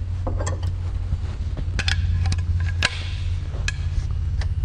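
A handful of sharp metallic clicks and knocks, the loudest about three seconds in, as the barrels of a freshly rejoined side-by-side shotgun are fitted back onto the action. A steady low hum runs underneath.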